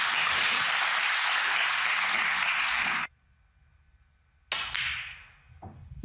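Audience applauding, cut off abruptly about three seconds in. Then, after a pause, two sharp clicks of snooker balls being struck by the cue about four and a half seconds in, with further clicks near the end.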